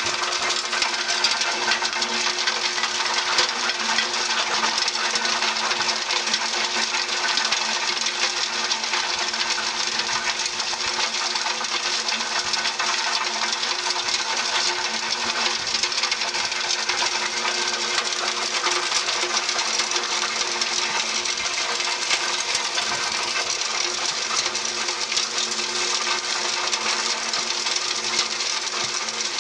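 Q-Sage 10×24 debearder running steadily while dishwasher pods are fed through, its rotor knocking the soap out of the packets with a continuous fine rattle over the machine's hum.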